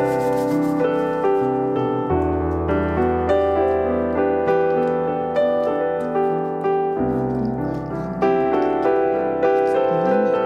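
Background music: a piano melody with steady, evenly paced notes.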